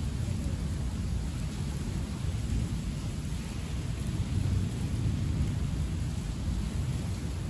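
Heavy rain falling steadily, under a continuous low rumble of thunder that swells slightly about halfway through.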